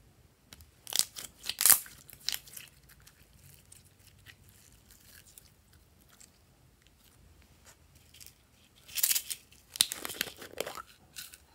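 Hands working glossy glitter slime, giving sticky crackling clicks about a second in; near the end a denser run of crunchy crackles as green clay is pushed out of its tub.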